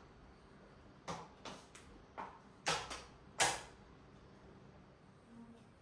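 Kitchen cabinet doors and things inside them being handled: about six sharp knocks and clicks in quick succession, the last the loudest, then quiet room tone.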